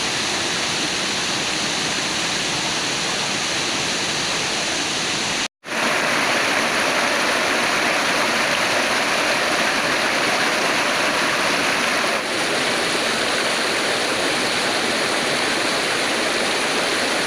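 Waterfall: the steady rush of falling water. It cuts out for a moment about five seconds in, then returns louder and brighter.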